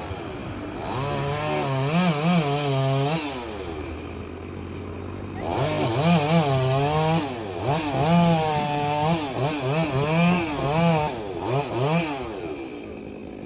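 STIHL MS 382 two-stroke chainsaw running at high revs in two long spells, its pitch wavering as the throttle is worked, then several short throttle blips near the end.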